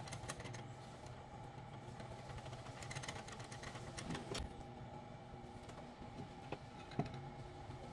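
Faint steady machine hum with a few light clicks and taps over it, the sharpest about seven seconds in.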